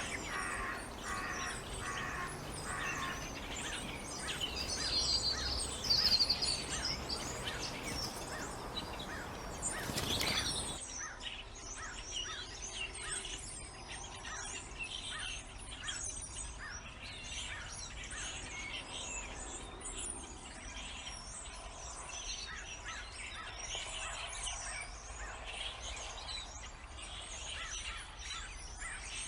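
Several birds chirping and calling with many short, rapidly repeated notes. The recording changes abruptly about eleven seconds in to a different, slightly quieter bird chorus.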